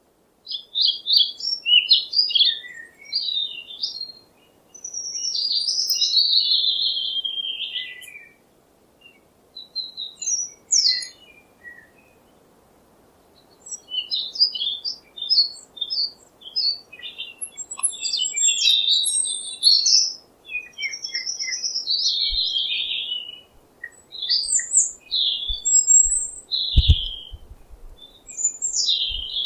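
A parrot calling in bouts of sharp, high chirps and longer falling squawks, with short pauses in between. A few low thumps come near the end.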